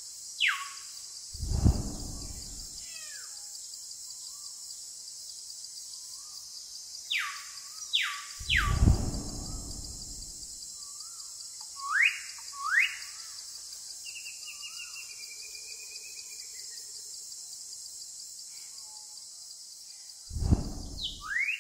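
Electronic backing track: groups of quick falling whistle-like swoops over a steady high hiss, each group followed by a deep whoosh, three times.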